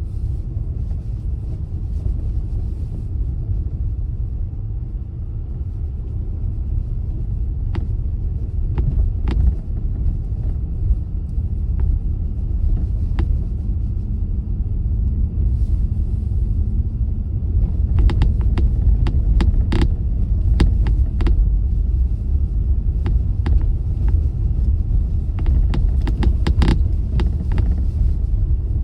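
Car driving with a steady low road-and-engine rumble. Scattered sharp clicks and ticks come through, a few about eight to thirteen seconds in and many more in the second half.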